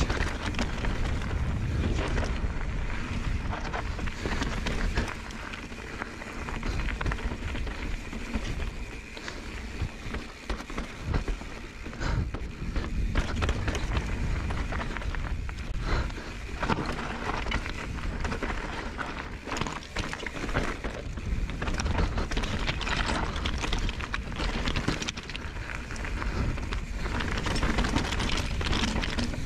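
Mountain bike riding down a loose slate scree trail: tyres crunching and skittering over broken slate, with the bike clattering and rattling over the rocks in quick, uneven knocks and a steady low rumble underneath.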